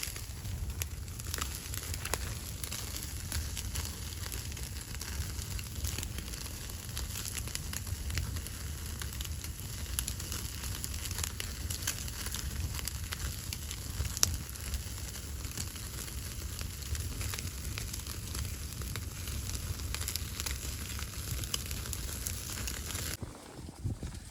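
Fire crackling, with many small pops over a low steady rumble; it cuts off suddenly about a second before the end.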